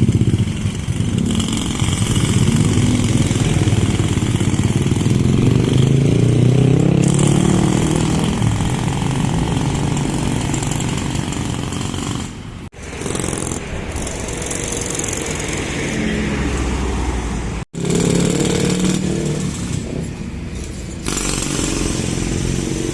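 Road traffic: motorcycle and vehicle engines running and passing by. The sound breaks off briefly twice.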